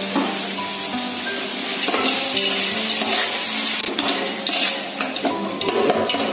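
Chopped onions and green chillies sizzling in hot oil in a metal pot, with a spoon scraping and stirring them against the pot from about two seconds in.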